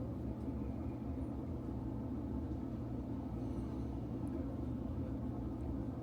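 A steady, even low mechanical rumble with a constant hum.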